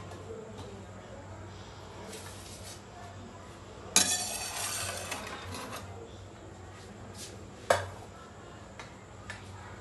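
Metal knife blade scraping across a stone slab to gather up diced carrot: a sharp knock about four seconds in as the blade meets the stone, then a scrape lasting about a second and a half. Another sharp knock follows a few seconds later.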